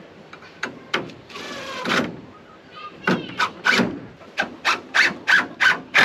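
Cordless drill driving screws into a wooden post: a run of about half a second with the motor whining and rising in pitch, then a string of short trigger pulses, about three a second, as the screws are seated.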